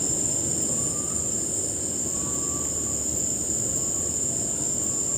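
Steady, high-pitched drone of an insect chorus, with faint short notes repeating about once a second.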